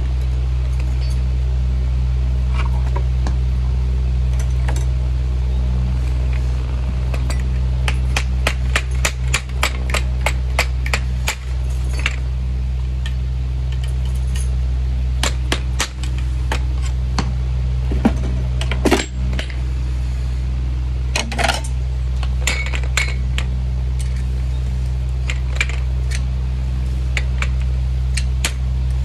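Farrier's hand tools working a horse's hoof on a hoof stand: a quick run of sharp taps and clicks, several a second, then scattered single clicks and knocks, over a steady low hum.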